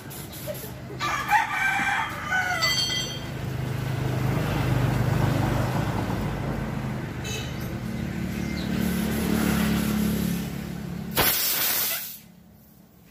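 A rooster crows once, about a second in, a single call that falls in pitch at the end. It is followed by a steady low machine hum, and near the end by a short burst of loud hissing air or spray.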